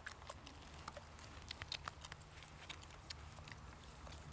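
Vizsla puppies moving about: faint, irregular light clicks and patter, over a low steady hum.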